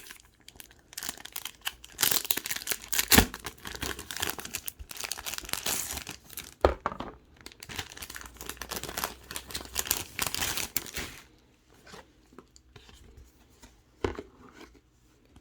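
Packaging being torn open and crinkled, a dense crackling run broken by a couple of sharp snaps, then a few light taps and rustles near the end.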